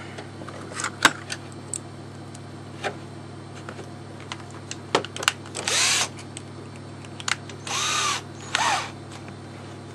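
Cordless drill-driver: a few sharp clicks in the first half, then three short runs of the motor near the middle and toward the end, its pitch rising and falling with each run.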